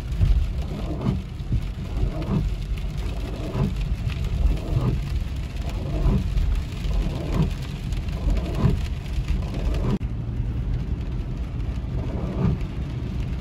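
Rain on the windshield, heard from inside the cabin of a Toyota RAV4 on the move, over a steady low road and engine rumble. The windshield wipers swish across the glass about once every second and a bit. The high hiss drops away about ten seconds in.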